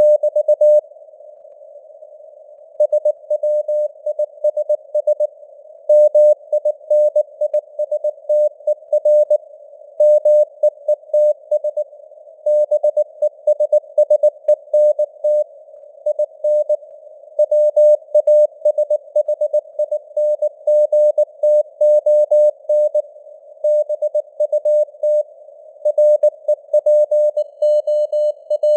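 Morse code sent at 19 words per minute as a keyed single-pitch beep, dots and dashes in a steady stream, over a narrow band of hiss that simulates radio noise, with the signal strength fading up and down (QSB). About a second in there is a two-second gap where only the hiss is heard.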